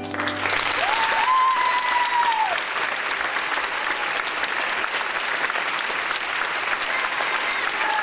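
Audience applauding in a theatre as the last orchestral chord dies away, with one long held call rising out of the clapping about a second in.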